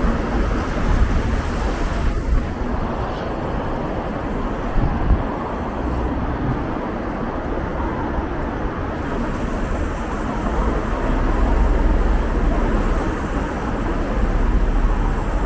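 Steady city traffic noise, a dense rumble of passing vehicles, a little louder in the second half.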